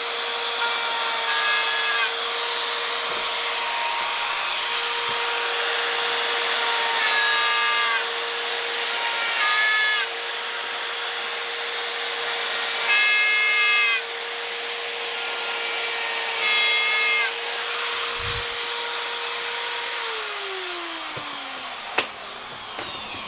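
Small rotary tool fitted with a router bit, running with a steady whine. About five times the tone dips and a higher note comes in for a second or so as the bit cuts into a thick sandal sole, boring out a hollow for the insole post. Near the end the motor is switched off and winds down with a falling pitch.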